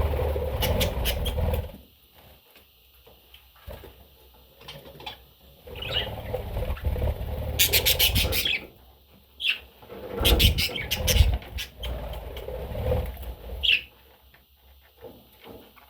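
Pet budgerigar chirping briefly a few times among three longer bursts of low rustling noise and quick clicks.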